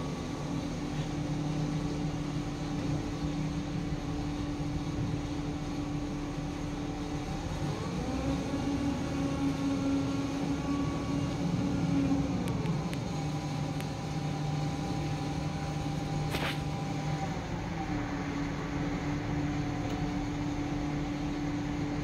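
Heavy diesel engines of a concrete mixer truck and an excavator running steadily on a construction site, the engine note stepping up about a third of the way in and dropping back a few seconds later. A single sharp clank about three quarters of the way through.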